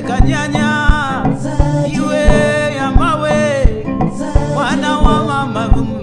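A man singing a folk song in long, bending phrases over a plucked gourd-resonator harp, with a low drum beat falling about every 0.7 seconds.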